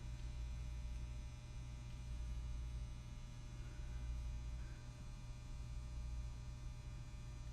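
Steady low electrical hum, like mains hum, with no other clear sound.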